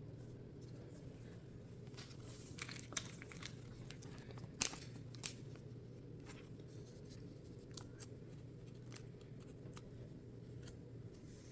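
Faint scattered clicks and rustles of Pokémon trading cards and a foil booster pack being handled, over a low steady hum.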